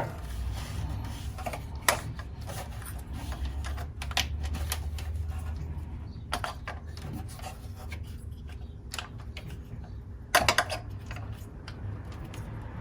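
Scattered clicks, light knocks and rubbing as parts are handled and refitted on the engine bay, with a louder clatter about ten seconds in.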